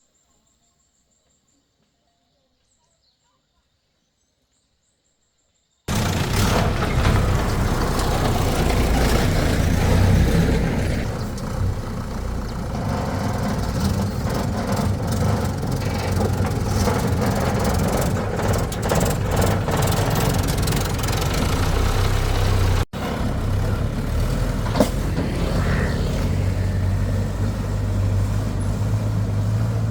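Near silence for about six seconds, then a heavy vehicle's engine running steadily and loudly, with a brief break near 23 seconds.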